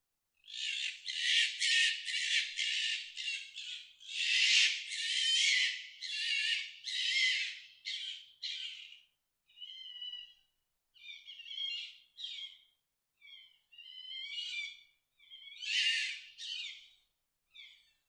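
Fox mating calls: a series of harsh, high, noisy calls, coming quickly one after another with a longer, loud one about four seconds in. Halfway through they turn into shorter, fainter calls with a wavering pitch, and a loud one comes again near the end.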